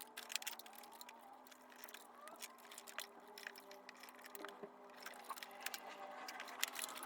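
Faint, irregular clicks and light taps from hand work in an engine bay.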